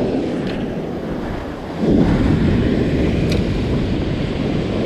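Ocean surf breaking and washing up a sandy beach, mixed with wind buffeting the microphone; the rush swells louder about two seconds in.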